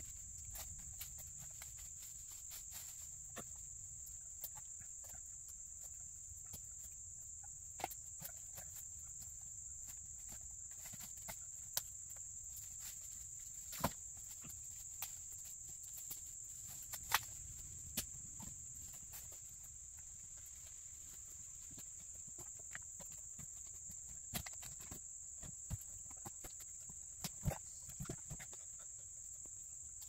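Steady high-pitched drone of insects, with scattered sharp clicks and knocks over it.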